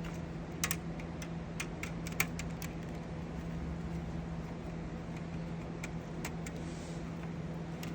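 Scattered light clicks and ticks of small tools and wires being worked at the screw terminals of a switching power supply, over a steady low hum.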